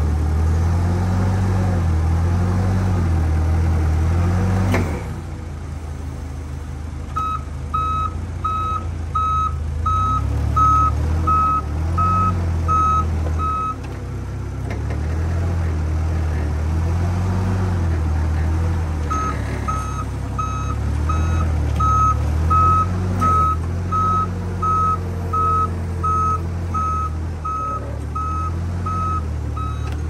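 Datsun forklift's engine running, revs rising and falling as it works, with a reversing alarm beeping about twice a second in two spells, from about seven seconds in and again from about nineteen seconds in. The engine drops sharply in level about five seconds in.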